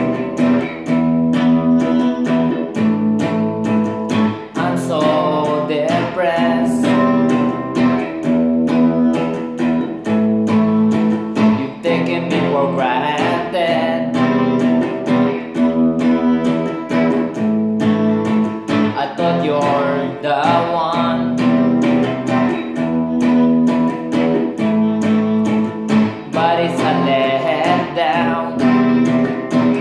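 Stratocaster-style electric guitar played through an amp, a repeating chord progression with sliding, bent melodic phrases every several seconds.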